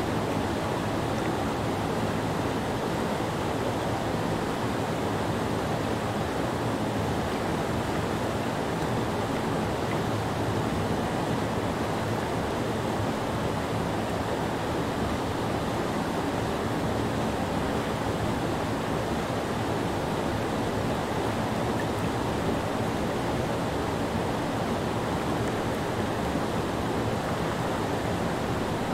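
Creek rapids pouring over a low rock ledge: a steady, unbroken rush of whitewater, fullest in the low and middle range.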